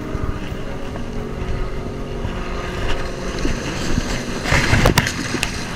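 A distant engine drones steadily under wind and surf noise. About four and a half seconds in comes a short splash and rush of water as a bluefish is let go into the shore break.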